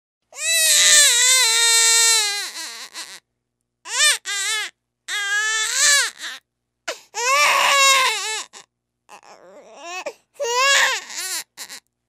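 A baby crying: one long wail of about three seconds, then a string of shorter cries broken by brief silent gaps, with a fainter whimpering stretch before a last cry near the end.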